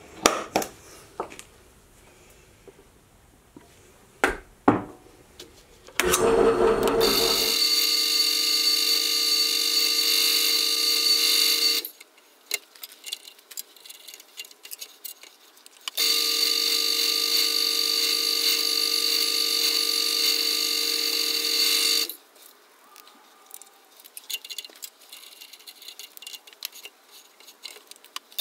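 Drill press running and drilling into a metal bar clamped in a vise, in two steady runs of about six seconds each with a pause between them. Before the drilling, a few sharp clicks and taps of hand tools on the bar.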